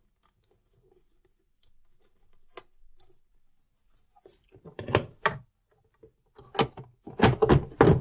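Plastic side panel of a Jura ENA 8 coffee machine's housing being fitted back onto the body. A few faint clicks, then sharp plastic knocks, then a quick run of louder knocks and clicks near the end as the panel is pressed onto its catches.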